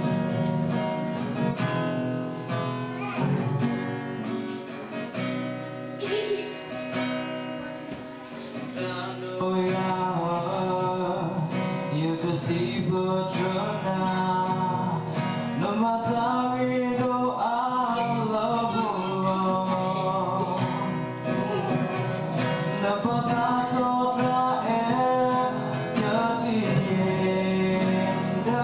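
Acoustic guitar strummed in steady chords, with a man singing along from about nine seconds in.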